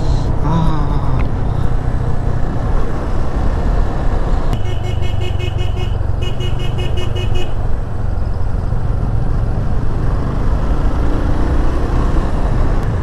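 Motorcycle engine running with wind rushing over the microphone while riding. About four and a half seconds in, a vehicle horn sounds as two pulsing blasts of about a second and a half each, one right after the other.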